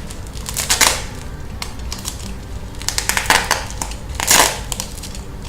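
Plastic packaging and bubble wrap crinkling and rustling as a wrapped parcel is handled to find a way in, in a few short bursts, the loudest a little past four seconds in.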